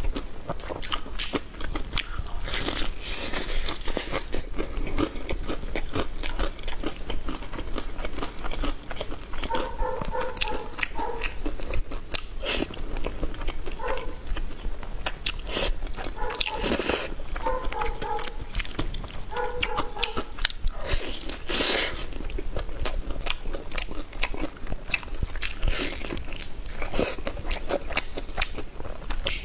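A person biting and chewing crunchy food close to the microphone, with many irregular crunches and mouth clicks.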